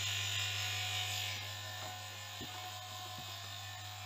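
Small electric vacuum pump running with a steady hum, slowly drawing the air out of a vacuum bag through a vacuum pot on its first test run. A hiss on top of the hum fades about a second and a half in.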